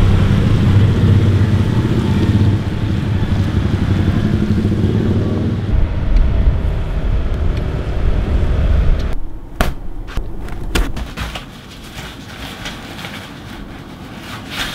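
A motor vehicle's engine and road noise running steadily, the drone shifting about six seconds in. About nine seconds in it cuts to a much quieter background with scattered clicks and taps.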